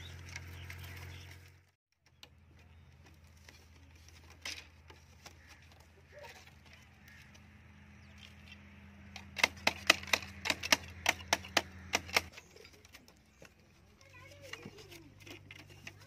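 Thin bamboo sticks clacking against each other as they are handled and bound: a quick run of sharp, light clicks at about five a second, lasting some three seconds past the middle, over a steady low hum.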